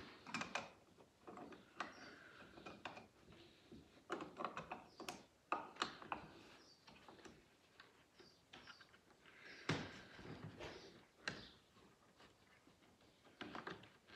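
Faint, scattered clicks and knocks of a Festool plunge router being handled and slid into place on aluminium guide rails; the router is not running.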